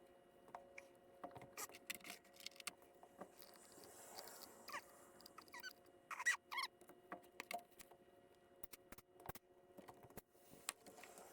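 Faint clicks and taps of small metal brake caliper parts being handled, with a few short squeaks in the middle, over a steady faint hum.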